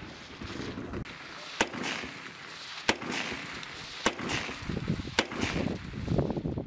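M4 carbine fired in single shots: four sharp cracks about a second apart, each trailed by a short echo.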